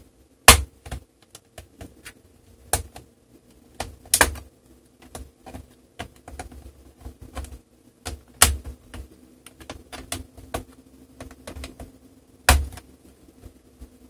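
Plastic clips of a Dell Inspiron 3793 laptop's bottom cover snapping loose as a pry tool is worked along the front edge. Irregular sharp clicks and snaps with lighter ticks between; the loudest come about half a second in, around four seconds, around eight and a half seconds and near the end.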